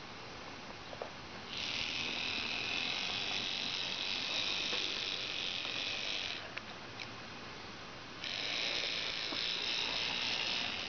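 Minitrix N scale DB Class E40 (BR 140) model locomotive's small electric motor and gears whirring as it runs along the track, in two spells of about five and three seconds with a short pause between. A few faint clicks fall in the pause.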